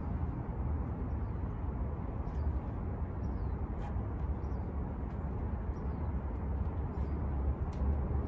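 Steady low outdoor rumble, with a small bird chirping over it in short, falling notes repeated every second or so.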